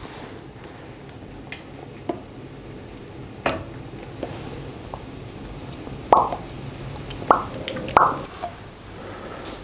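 Turkish coffee coming up to the boil in a brass cezve: the foam bubbles and pops in small irregular plops, with three louder pops in the second half as the foam rises.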